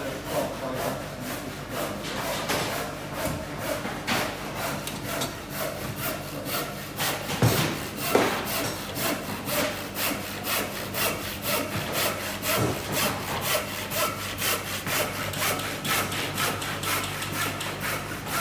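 Handsaw cutting timber in regular back-and-forth strokes, with two sharp knocks about halfway through and a steady low hum underneath.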